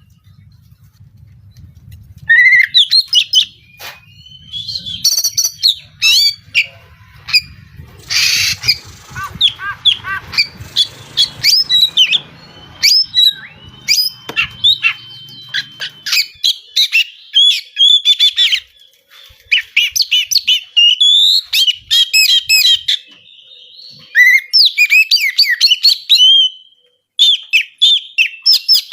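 Oriental magpie-robin (kacer) singing a loud, fast, varied song of sharp whistles, chirps and harsh rasping notes. A long held whistle comes about midway.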